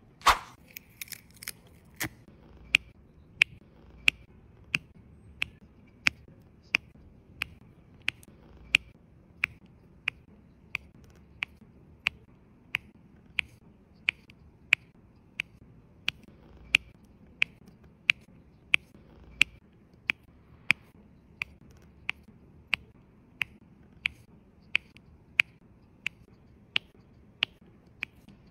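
Diamond-painting multi-placer pen pressing rows of resin drills onto the sticky canvas, with a sharp click at each press, about three every two seconds. In the first second or so there is a brief rattle as the tip is dipped into the tray of loose drills.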